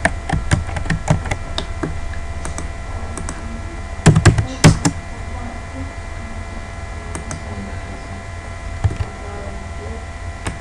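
Computer keyboard keystrokes and mouse clicks while AutoCAD commands are entered. There is a quick run of taps near the start, a louder cluster about four seconds in, and a few single clicks later, over a steady low hum.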